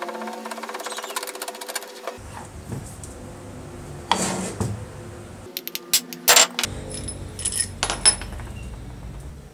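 Rusty metal drill-chuck parts being handled: a fast grating rattle as the chuck is twisted by hand, then a scrape and several sharp metallic clinks and knocks as the parts are moved and set down, the loudest clinks after the middle.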